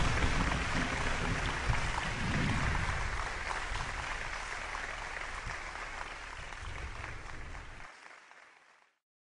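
Applause from a crowd, many fast claps blending into a steady patter that fades away gradually and ends about nine seconds in.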